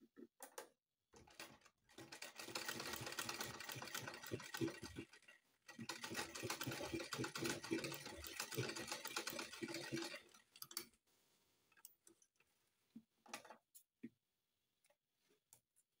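Manual black-head straight-stitch sewing machine stitching in two runs of rapid, even ticking, a few seconds each, with a short pause between them. It stops about two-thirds of the way through, and only a few scattered light clicks follow.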